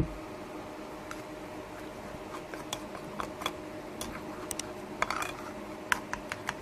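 Metal spoon stirring a thin flour-and-water paste in a bowl, tapping and scraping against the bowl's sides in irregular clicks that grow more frequent from about two seconds in. A soft knock at the very start and a faint steady hum underneath.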